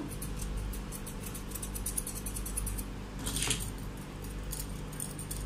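Grooming scissors snipping in quick runs of small metallic clicks as a Pomeranian's face fur is trimmed, over a steady low hum.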